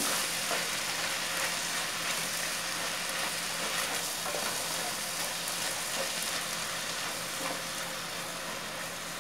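Ground beef filling with onion, garlic, olives and chopped tomato sizzling steadily in a pot over a gas burner while a wooden spoon stirs it.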